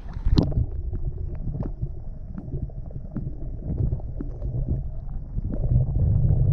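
A splash as the camera plunges under the water, then muffled underwater sound: a low rumbling churn of water moving around the submerged microphone, with scattered small clicks and knocks. The rumble grows a little louder near the end.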